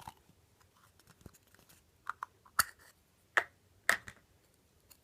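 Toy packaging being opened by hand: a few short, sharp crackles and clicks, starting about two seconds in, with the last near four seconds.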